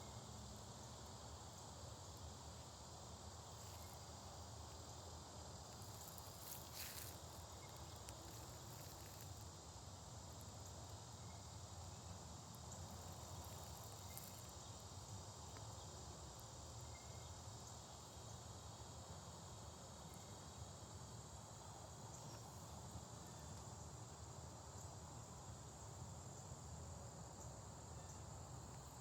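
Faint, steady high-pitched chirring of insects, with a few soft clicks.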